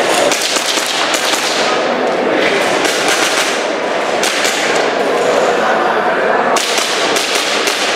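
Airsoft pistol fired in quick strings of sharp shots, the groups a second or so apart, over a steady background noise.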